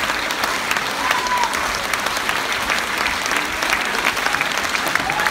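Theatre audience applauding: many hands clapping in a dense, steady stream.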